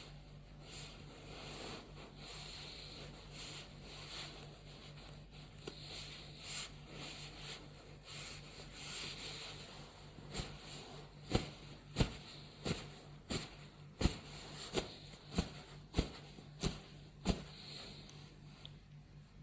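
Stomach gurgling close to the microphone in soft, irregular swells. In the second half come about a dozen sharp taps, one every half second or so, which then stop.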